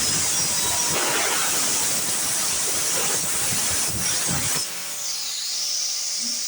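Angle grinder cutting metal: a steady hissing rush with short low knocks. About four and a half seconds in the cutting noise eases, and the grinder's high whine dips in pitch and climbs back.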